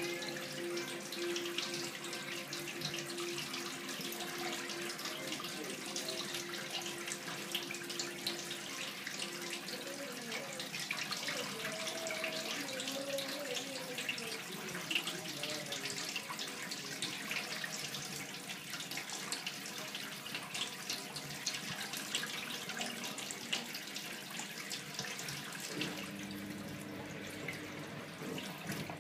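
Water pouring steadily from a washing machine's corrugated drain hose into a stainless steel sink, splashing on the metal basin by the plughole: the machine pumping out during its cycle.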